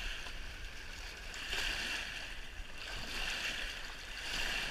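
Water splashing and rushing in the shallows at the riverbank, swelling three times, as a landed salmon thrashes at the water's edge.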